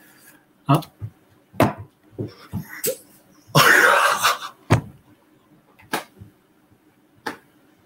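A man's excited, breathy gasps without words. The loudest is a sharp gasp about halfway through, and several short sharp clicks fall between them.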